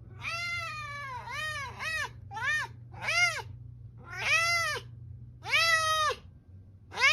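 Domestic cat meowing repeatedly: about seven meows in a row, each rising and then falling in pitch, some short and some drawn out.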